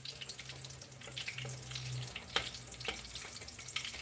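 Cabbage omelette sizzling in oil in a wok, with spatulas scraping and clicking against the pan as it is loosened and lifted; the sharpest click comes about two and a half seconds in.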